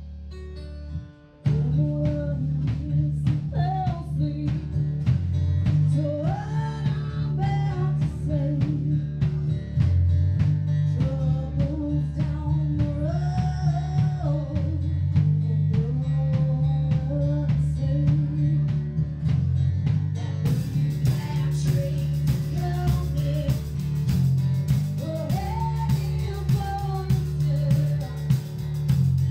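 Live band playing: a drum kit keeping a steady beat under bass and electric guitar, with a melody line over the top. The full band comes in sharply about a second and a half in.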